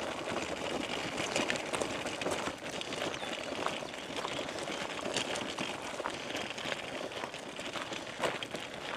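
Footsteps crunching on a gravel path, an irregular run of small crunches while walking.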